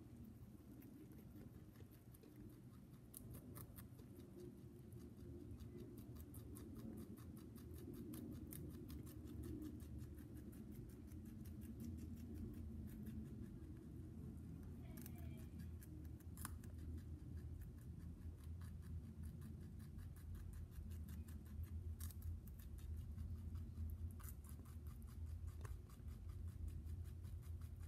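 Lop-eared rabbit chewing carrot greens: a fast run of small, crisp crunching clicks, with a few sharper snaps along the way.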